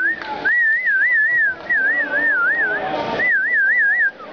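High warbling whistle, wavering up and down about four times a second, sounded in several blasts of about a second each.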